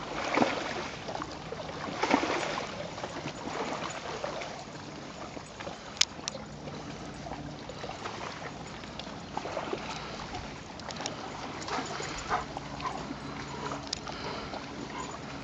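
Lake water lapping and splashing, with two louder washes in the first few seconds and a single sharp click about six seconds in, over a faint steady low hum.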